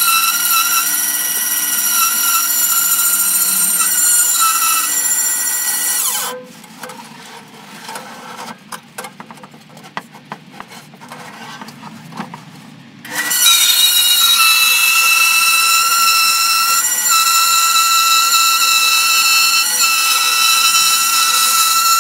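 Bandsaw with a narrow blade cutting curves in a wooden board: a loud, steady whine of several high tones. About six seconds in the cutting stops for roughly seven seconds, leaving a much quieter hum with scattered knocks and rubbing as the board is shifted, then the cut starts again just as loud.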